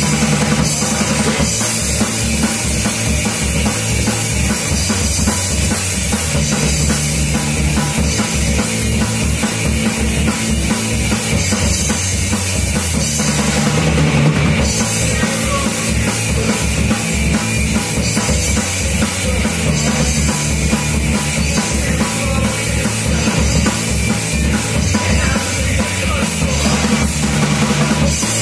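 Live rock band playing loud: electric guitar and bass guitar over a drum kit keeping a fast, steady beat, with a brief change in the pattern about halfway through.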